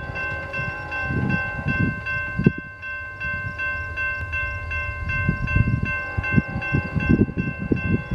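Railroad grade crossing bell ringing steadily, about three strikes a second, over a low rumble that swells and fades as a freight train approaches.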